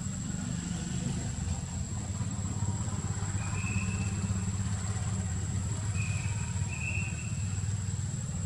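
A steady low rumbling hum, like an engine running some way off, under a thin steady high tone. A few short high chirps come about three and a half seconds in and again around six to seven seconds.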